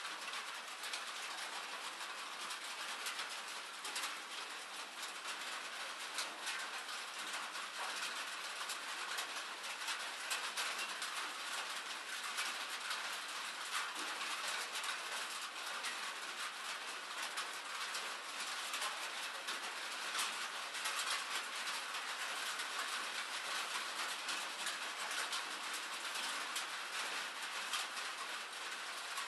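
Steady rain falling, a dense run of small drop ticks over an even wash of noise that holds the same level throughout.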